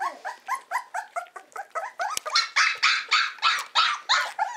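Cane Corso puppies whining and yelping: a quick run of short, high rising-and-falling cries, about four a second, growing louder and harsher about two seconds in.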